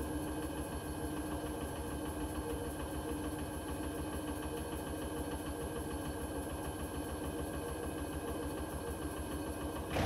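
Hoover H-Wash 300 Plus front-loading washing machine spinning at 600 rpm: a steady hum with a few constant tones over a low rumble. The owner wonders whether the drum bearings already sound worn.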